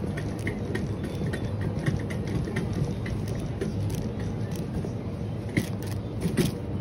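Supermarket ambience: a steady low hum with light ticking clicks about two a second, and a couple of sharper clicks near the end.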